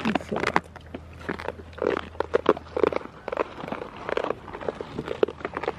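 Goats jostling against the camera: a rapid, irregular run of clicks and scuffs as their fur and mouths brush the microphone, with a few short, low sounds among them.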